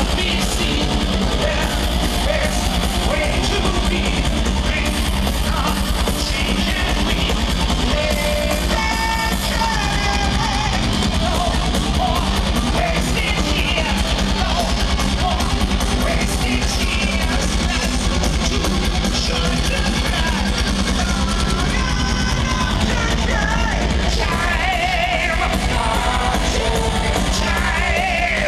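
Live power metal played through a big outdoor PA: distorted electric guitars, drum kit and a singer, heard from among the audience.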